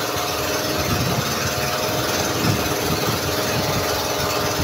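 An engine aboard a wooden fishing boat running steadily with a low throb, over a constant wash of choppy sea water.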